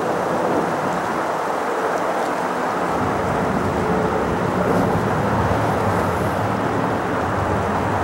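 Emirates Airbus A380's four jet engines at takeoff power, heard as steady, distant jet noise. A deeper rumble builds about three seconds in as the airliner rolls and lifts off.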